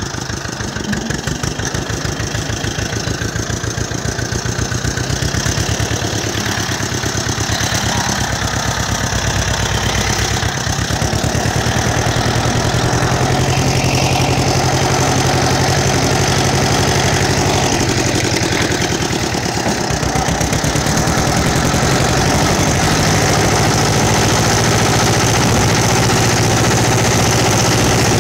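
Ursus C-330 tractor's two-cylinder diesel engine running under way, a rapid, even train of firing pulses. The engine note dips and picks up again about ten seconds in and once more near twenty seconds.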